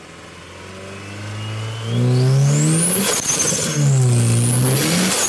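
Turbocharged car engine, fitted with a larger 62 mm throttle body, accelerating hard, heard from inside the cabin. It revs up through one gear, shifts about three seconds in, then pulls up through the next gear, with a high turbo whine rising each time.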